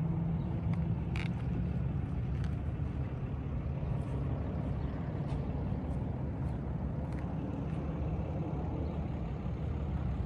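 A vehicle engine idling with a steady low rumble, with a few faint ticks over it.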